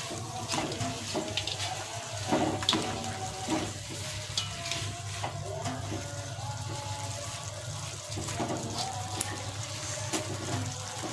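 A pink plastic spatula stirring sponge gourd and bean sprouts in a little simmering broth in a wok, with irregular scrapes and knocks against the metal and liquid sloshing. A few louder knocks come about two and a half seconds in, over a steady low hum.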